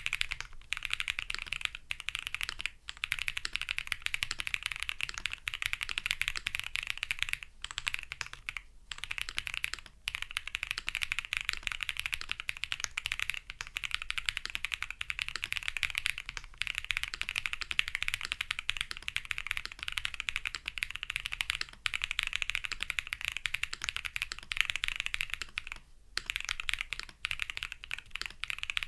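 Fast, continuous typing on a qwertkeys QK60 custom mechanical keyboard, with a few brief pauses. It is gasket-mounted with a POM plate, Holy Chikies switches lubed with Krytox 205g0, and PBTFans keycaps.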